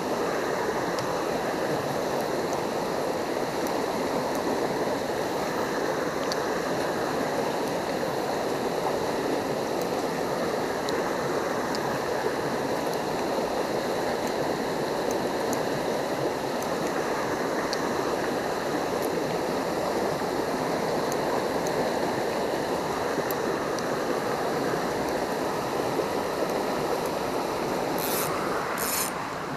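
Shallow rocky river rushing steadily over and between boulders in riffles, a constant, even water noise.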